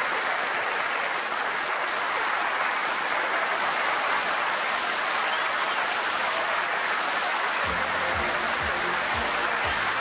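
Studio audience applauding steadily. Near the end, music with a bass line comes in under the applause.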